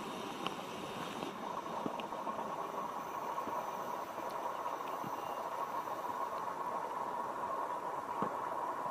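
Siemens NF8 Combino low-floor tram running on its rails: steady rolling noise with a constant high-pitched tone and a few faint clicks.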